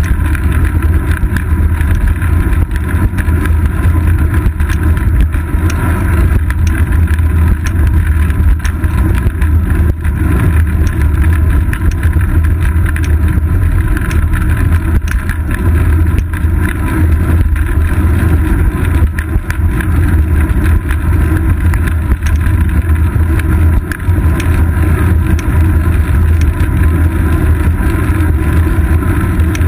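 Steady, loud low rumble of road vibration and wind picked up by a GoPro Hero 2 mounted on a bicycle's seat post while riding on asphalt.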